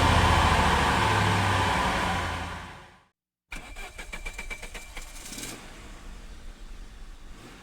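A sports car engine running loud just after start-up, fading out over about three seconds. After a brief silence, another sports car's starter cranks rapidly with a thin whine for about two seconds and the engine catches and settles to a quieter idle.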